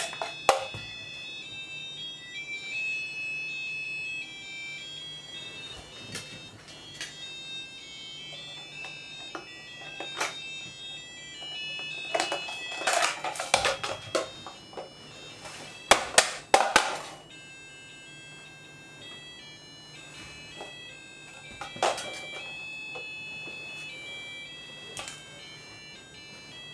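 Several small digital alarm clocks going off at once, playing overlapping electronic beeping melodies. Loud rustling of bedding and knocks of the clocks being handled come about halfway through.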